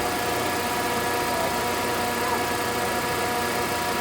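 Mitsubishi L200 pickup engine idling steadily, its newly replaced drive belts running without the earlier belt noise.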